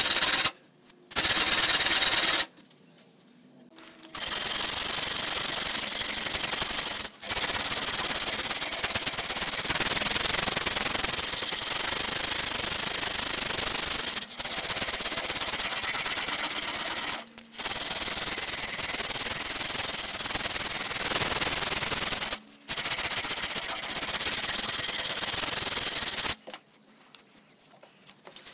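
Wooden cleaver handle being hand-sanded with an abrasive strip, a dense scratchy rasp in long runs of several seconds. It breaks off in short pauses, the longest near the start and near the end.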